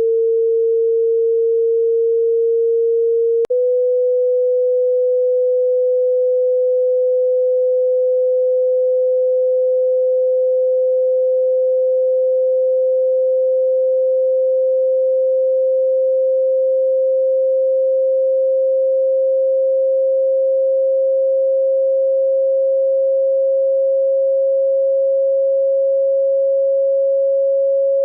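Pure sine-wave test tone played for tinnitus tone-matching: a single steady mid-pitched note. About three and a half seconds in there is a brief click as it steps to a slightly higher note, and the pitch then creeps slowly upward.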